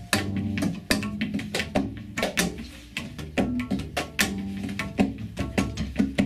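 Freely improvised acoustic music: short low notes on a double bass under dense, uneven clicks and knocks from hand percussion.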